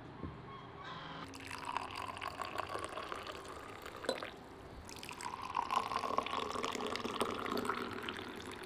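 Black tea poured in a thin stream from a glass teapot into small glass tea cups, trickling and splashing into the glass. It comes in two pours with a short break between them, and a light click about four seconds in.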